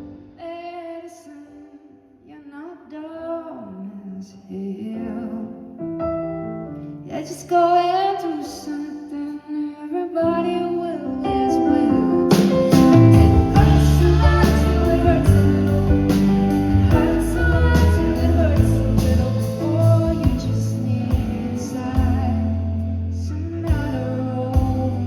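Live band music with a woman singing: a quiet passage of voice over sparse keyboard, then the full band with bass and drums comes in about eleven seconds in and the music grows louder.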